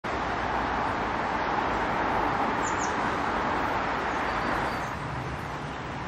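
Steady rushing background noise, like distant road traffic, easing a little about five seconds in, with a few faint high bird chirps near the middle.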